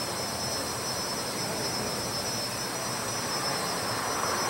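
Distant train approaching the station, a steady rushing rumble that grows slightly louder near the end.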